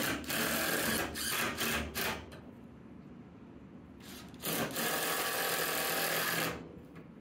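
Cordless driver spinning a pocket-hole screw into a 2x4 frame joint. There is a run of about a second and a half, then a short burst, and after a pause a steady run of about two seconds as the screw is driven home.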